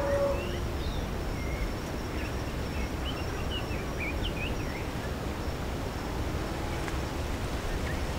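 Open-valley ambience: a steady low rush of wind with a faint, steady high insect drone. Birds chirp in a quick flurry about three to four and a half seconds in, and a pitched animal call trails off right at the start.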